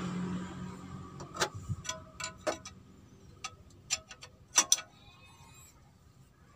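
Irregular sharp metallic clicks and clinks of a wrench and fingers working the loosened injector pipe nuts on a Mitsubishi L300 diesel engine, while its fuel lines are being opened to bleed air.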